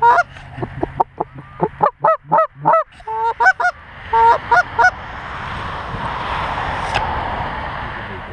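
Rapid, loud goose honks and clucks blown on hunters' goose calls in quick bursts for about five seconds, then a steady rushing noise with a single sharp click about seven seconds in.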